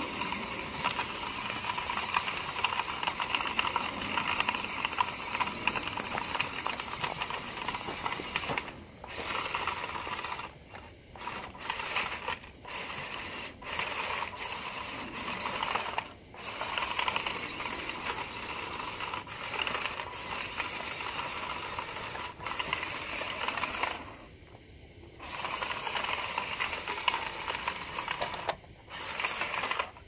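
Small electric motor and gearbox of a WPL C24-1 1/16-scale RC crawler truck whining as it drives. The whine is steady at first, then stops and starts several times as the throttle is let off and applied again.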